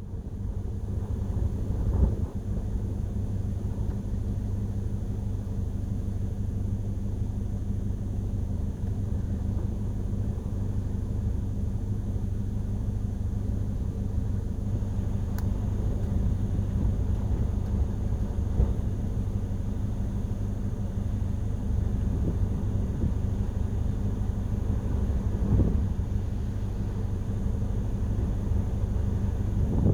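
Strong typhoon wind buffeting the microphone as a steady low rumble, with harder gusts about 2, 18 and 25 seconds in.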